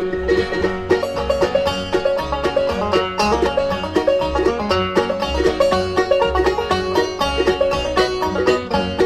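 Bluegrass band instrumental break: a banjo picks a fast run of notes as the lead, over rhythm guitar and a steady bass beat.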